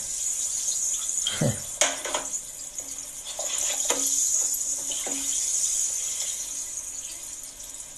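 A smartphone's small built-in speaker playing a video's soundtrack: a steady high hiss like running water, with a few faint short knocks and brief low notes.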